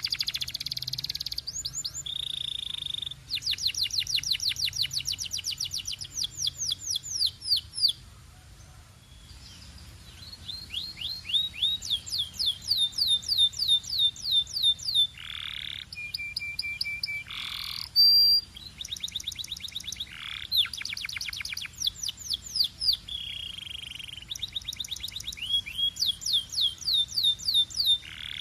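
Canary singing: long rolls of rapid, evenly repeated whistled notes, each roll a fast run of short sweeps, with brief pauses between phrases and a quieter lull about eight seconds in.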